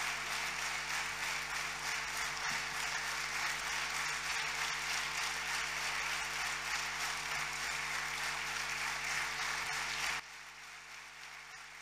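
Audience applauding steadily. The applause cuts off abruptly about ten seconds in, leaving a faint steady hum.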